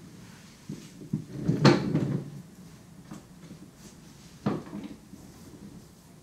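A few knocks and clunks, like a cupboard door or drawer being handled: a cluster of them between about one and two seconds in, the loudest there, and one more sharp knock about four and a half seconds in.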